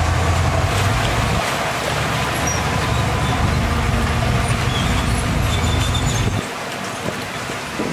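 Heavy construction machine engine running, a steady low rumble that shifts about a second and a half in and drops away sharply near the end.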